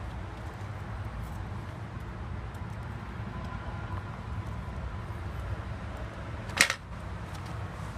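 A steady low background rumble, with a single sharp knock about six and a half seconds in as a wooden stick strikes against the doormat's edge.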